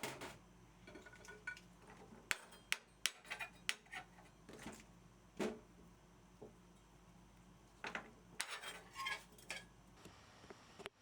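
Kitchen utensils and dishes clinking and knocking: a scattered series of separate clicks and clinks, some with a short ring, in two clusters, one in the first half and one about eight to nine and a half seconds in.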